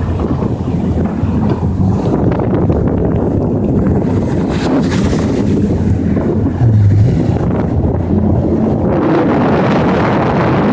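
Yamaha jet ski engine running under way, with wind buffeting the microphone. A brief louder surge comes about two-thirds of the way through.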